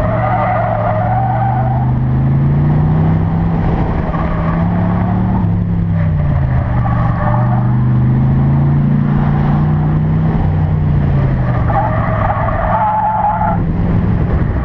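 1992 Chevrolet Corvette's V8 engine driven hard, its pitch climbing and falling twice as the car accelerates and slows. Its 320-treadwear street tires squeal repeatedly through the turns, loudest near the end.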